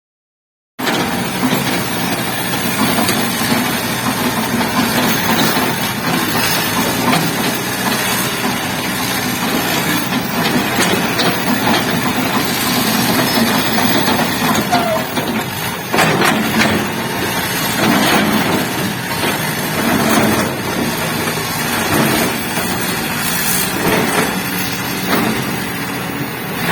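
Kobelco SK200 hydraulic excavator's diesel engine running steadily, with a few sharp knocks in the second half. The sound cuts in suddenly just under a second in.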